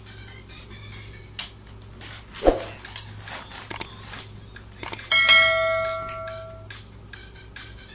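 Subscribe-button sound effect: a couple of quick clicks, then a bright bell ding that rings for about a second and a half and fades out. Before it there is light plastic rustling and one sharp knock.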